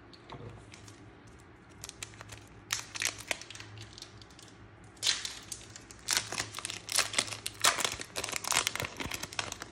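Foil wrapper of a Pokémon Shining Fates booster pack being crinkled and torn open by hand, with a few scattered crackles at first and a dense run of crackling from about halfway in.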